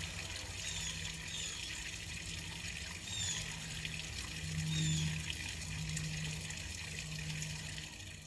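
Water spraying steadily from a rain shower head, with a steady low hum and a few short, high, falling chirps over it.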